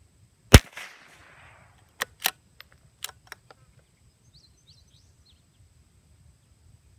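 A single shot from a CZ 455 .22 LR bolt-action rifle about half a second in, a sharp crack with a short echo trailing after it. About a second and a half later comes a quick run of metallic clicks as the bolt is worked, and then faint bird chirps.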